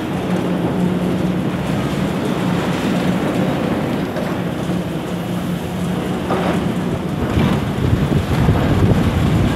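Diesel engine of a high-reach demolition excavator running steadily with a low hum, with wind rumbling on the microphone, stronger in the last couple of seconds.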